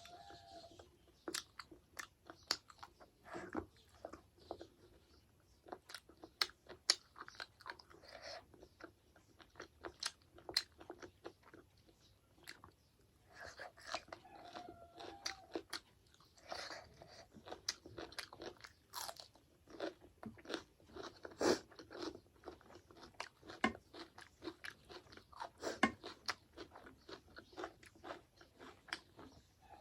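A person eating close to the microphone: irregular chewing and biting with many sharp crunches and wet mouth clicks, the sounds of working through a meal of meat curry, rice and pickles.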